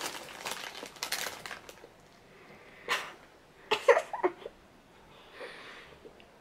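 Breathy mouth and nose noises and a few short, muffled vocal sounds about four seconds in, from a boy with his mouth stuffed full of marshmallows.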